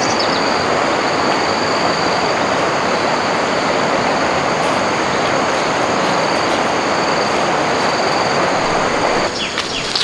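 Steady rushing of flowing stream water, with a high, steady insect drone above it. Near the end the rushing drops away and short high chirps and clicks take over.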